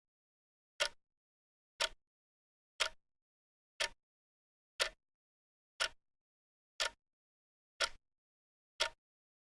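Clock ticking, one sharp tick each second, nine ticks in all, with dead silence between them.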